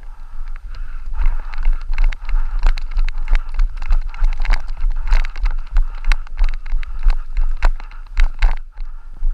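Rapid, irregular knocks and thumps, several a second, over wind buffeting and rustle on the microphone: a body-worn camera being jostled as its wearer moves, sounding loudly throughout and stopping shortly before the end.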